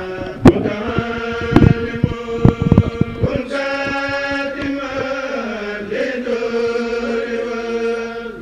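Voices chanting in long, held notes. There are several sharp knocks in the first three seconds as the handheld microphone is passed.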